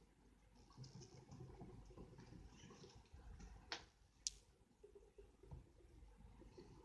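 A pet rat humming faintly, with a few sharp clicks, the loudest about four seconds in.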